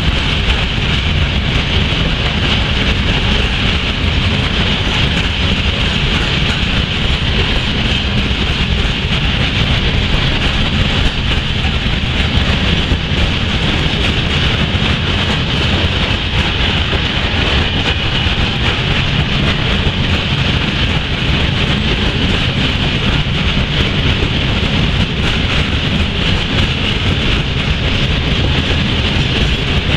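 Long freight train of high-sided open wagons rolling past: a steady rumble and rush of wheels on rails.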